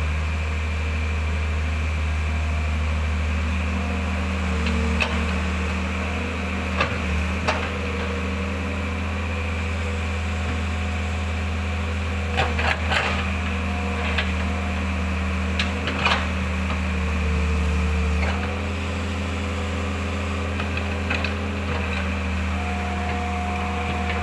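Mitsubishi MS120 hydraulic excavator's diesel engine running steadily under load, its hydraulic tones shifting in pitch as the arm works. Scattered knocks and clunks from the bucket digging in the drain, several in quick succession about halfway through.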